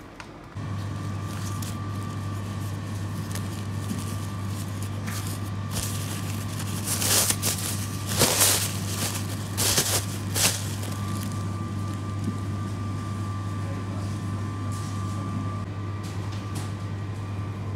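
Thin plastic produce bag crinkling and rustling in several loud bursts about halfway through as green chillies are picked into it, over a steady low hum.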